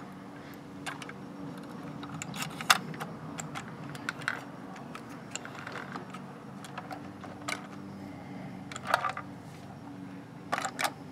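Irregular clicks and light rattles of a diecast toy front-loader garbage truck's lift arms and plastic bin being worked by hand, with one sharper click about a third of the way in and a quick cluster near the end, over a steady low hum.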